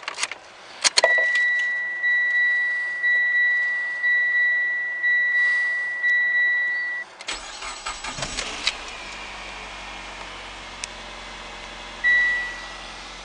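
A few clicks, then a dashboard warning chime beeping over and over for several seconds. The Mitsubishi Outlander's 2.4-litre MIVEC four-cylinder engine then cranks briefly, starts and settles into a quiet steady idle, with one more short chime near the end.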